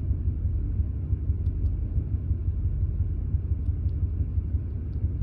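Ford 5.4-litre V8 of a 2001 F-150 idling roughly, a steady low rumble with small uneven surges: a random misfire that sets in once the engine is at operating temperature.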